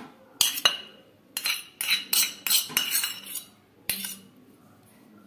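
A metal teaspoon clinking against ribbed glass bowls while spices are spooned in: a run of light, sharp clinks, some briefly ringing, which stops about four seconds in.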